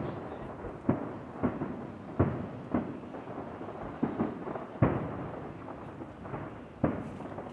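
Aerial firework shells bursting in a rapid, irregular series of bangs, about one or two a second, each trailing off in a rolling echo.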